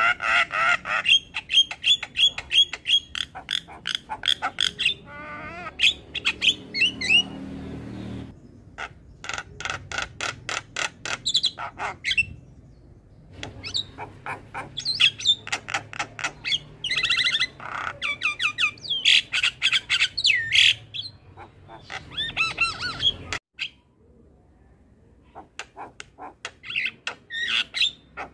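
Javan myna singing a long, busy song of rapid clicking notes, harsh squawks and warbled chattering trills, with a short pause about two-thirds of the way through.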